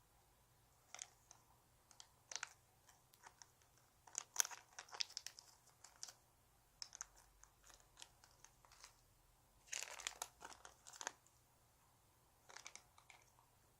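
Faint crinkling and crackling from hands handling and squeezing a squishy toy, in irregular bursts that are busiest about four to six seconds in and again around ten seconds.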